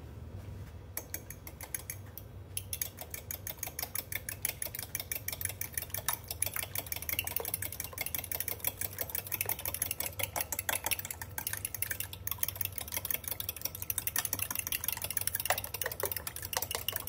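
Fork whisking raw eggs in a glass measuring cup: a rapid, steady clinking of the tines against the glass, starting about a second in.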